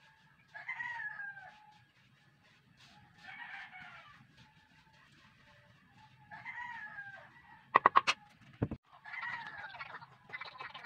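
Chickens calling four times, each call with a falling pitch, and a quick run of loud, sharp knocks about eight seconds in.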